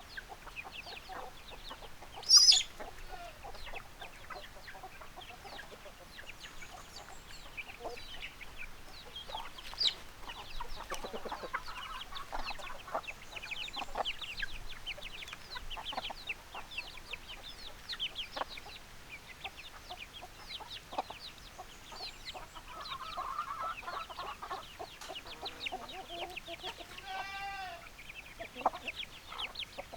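Backyard chickens clucking, with many short, high calls repeating throughout. A loud, sharp sound comes about two seconds in, and a longer, drawn-out call comes near the end.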